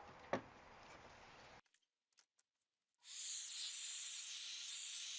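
Circular saw cutting a notch in a cabinet panel, starting abruptly about three seconds in after a brief silence, as a steady high hiss-like noise.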